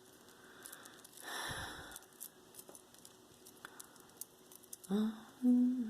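Faint clinks and rustling of metal earrings being handled, with a louder rustle about a second and a half in. Near the end a woman's voice starts humming a held note.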